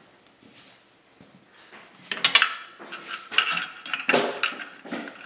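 Metal clinks and scrapes of a wrench against a bolt and the engine mount's steel bracket as the mount bolts are started by hand. They come in several short clusters from about two seconds in.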